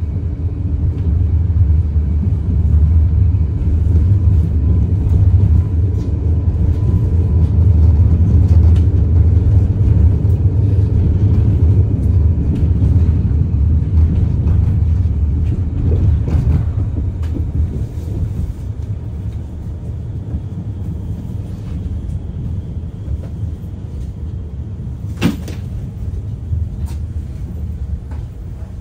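Steady low rumble of a moving tram heard from inside the cabin. It eases and grows quieter over the second half as the tram slows toward a stop, with one sharp click about 25 seconds in.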